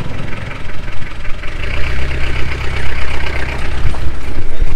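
Engine of a 1989 Mahindra MM540 jeep running steadily, with a couple of thuds near the end.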